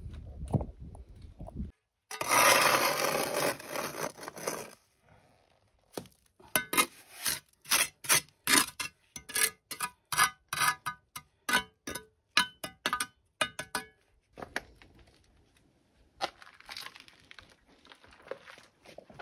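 Steel trowel scraping and working wet mortar against concrete blocks: a longer scrape about two seconds in, then a run of short, quick strokes, two to three a second, for several seconds.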